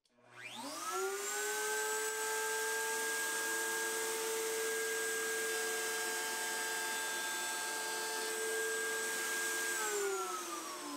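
Table-mounted router spinning up to speed, then running with a steady whine while a pass is made along a plywood board's edge to widen a tongue. It is switched off about ten seconds in, its pitch falling as the bit winds down.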